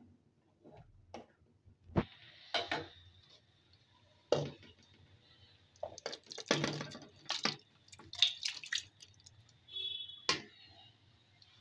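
Chicken curry poured from a metal pan into a pot of simmering rice and vegetables, the liquid splashing in about halfway through. Several sharp knocks and clatters of the pan and spatula against the pot come and go over a faint steady hiss.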